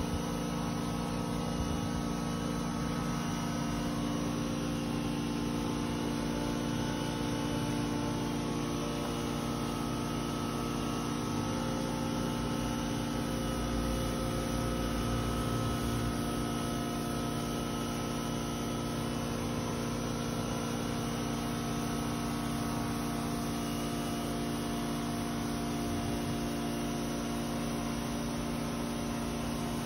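Steady machine hum with several constant tones, unchanging throughout.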